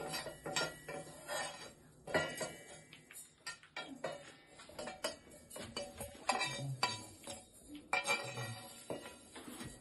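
Irregular clinks, taps and scraping as roasted sesame seeds are pushed off a flat pan into a stainless-steel mixer-grinder jar, the pan knocking against the jar's rim.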